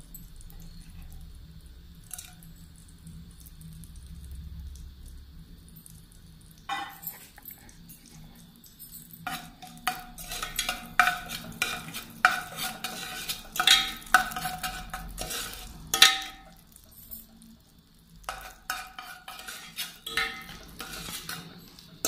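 Metal slotted spoon stirring and scraping against the inside of an aluminium pressure cooker, giving repeated clinks and scrapes with a metallic ring, as whole spices fry in hot ghee and oil with a light sizzle. The first several seconds are quieter; the stirring starts about seven seconds in and turns busy a couple of seconds later, with a short pause near two-thirds of the way through.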